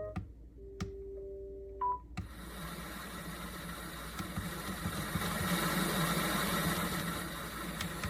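AFEXOA sunrise alarm clock's built-in speaker: a few clicks and short electronic beep tones at different pitches, then, about two seconds in, a steady white-noise track with a low hum starts up from its sound machine.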